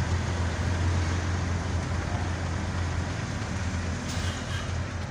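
Steady engine drone and road noise inside the cab of a moving vehicle, with a constant low hum underneath.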